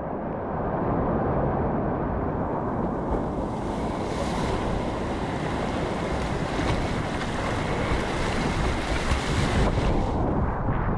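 Rushing whitewater of a river rapid close around a kayak, with wind buffeting the microphone and the splash of paddle strokes as the kayak is paddled hard upstream against the current.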